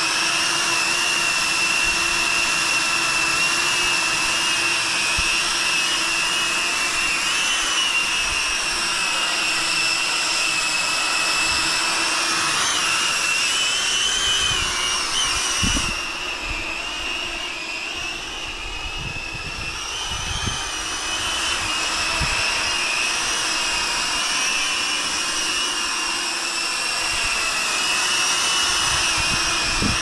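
Zephyr Mini Cine V5 cinewhoop drone's motors and ducted propellers whining steadily in flight, the pitch wavering up and down with throttle changes. A few low thumps of wind come through partway through.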